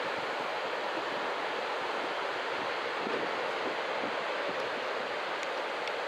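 Ocean surf breaking on a beach: a steady, unbroken wash of waves.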